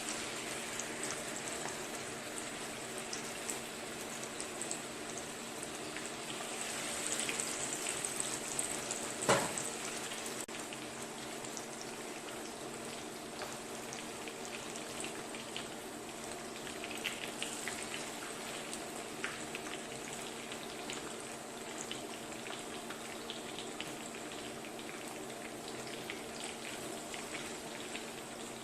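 Battered chicken deep-frying in hot oil: a steady sizzle with dense crackling, swelling a little around seven to nine seconds in. One sharp tap about nine seconds in.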